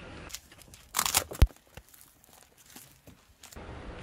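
An object being crushed under a car tyre: a burst of crunching and crackling about a second in, ending in one sharp thump, followed by a few faint crackles.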